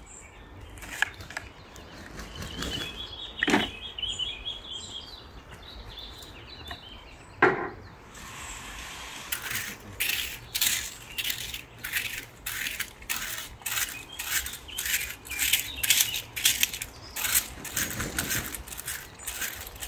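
Shovel and rake working loose soil: a few scrapes and two sharp knocks of a shovel in the first half, then a garden rake scraping the soil in steady repeated strokes, about two a second, from about nine seconds in. Faint chirps in the background.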